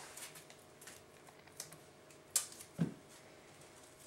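Quiet handling sounds from hands working with a roll of autoclave indicator tape at a countertop: a few light clicks and taps, the sharpest about two and a half seconds in, followed shortly by a soft knock.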